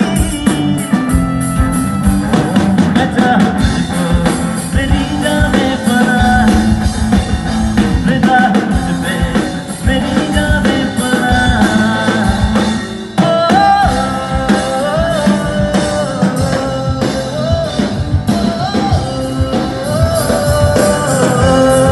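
A band playing a song: a steady drum-kit beat and guitar with a singer's voice, the sung melody coming through more clearly about halfway through.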